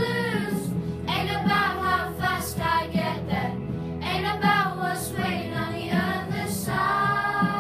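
A group of children singing a song together, in phrases with short breaks about a second in and again around three and a half seconds in.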